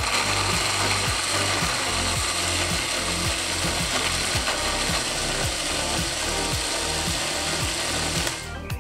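Small electric blender running steadily, grinding fried shallots, garlic, candlenut, ginger, turmeric and other spices into a paste for opor ayam; the motor stops near the end.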